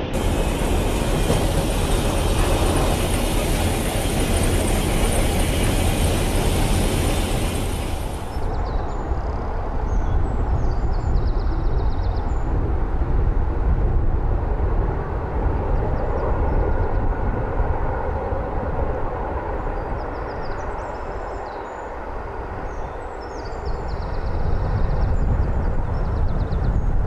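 Steam train hauled by the LNER V2 locomotive 'Green Arrow', running with a continuous heavy noise. The sound turns duller about eight seconds in and eases off briefly near the end before returning.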